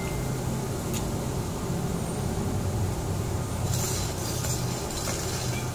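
Steady low hum and rumble of the barbecue grill's exhaust ventilation, with a brief hiss about four seconds in.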